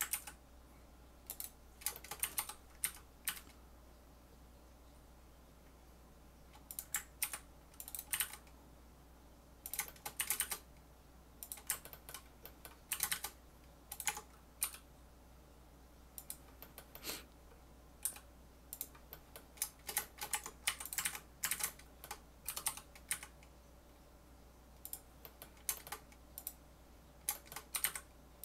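Computer keyboard keys tapped in short clusters of a few keystrokes with pauses between, like hotkeys pressed while working in 3D modelling software. A steady low fan hum runs underneath.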